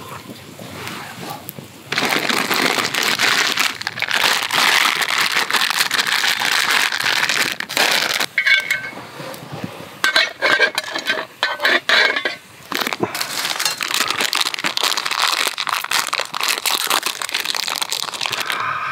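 Close, continuous crackling of a small twig fire burning under a mess tin lid, with plastic packaging being crinkled and torn open near the end.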